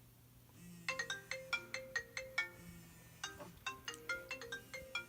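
Mobile phone ringtone playing a quick melody of short plucked-sounding notes, in two phrases with a brief pause between them.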